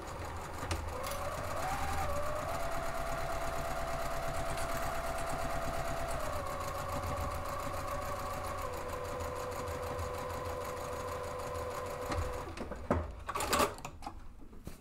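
Juki sewing machine stitching a seam through fabric panels, running at a steady speed with a rapid needle rhythm, easing slightly slower partway through and stopping about twelve seconds in. A few sharp clicks follow near the end.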